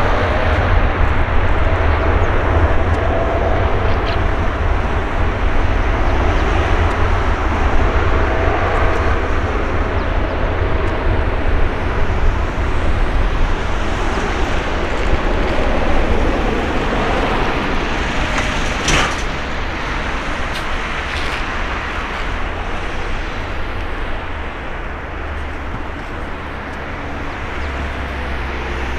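Boeing 787-9 Dreamliner's twin turbofan engines at takeoff thrust during the takeoff roll: a loud, steady rumble with a faint whine, fading somewhat as the airliner accelerates away down the runway.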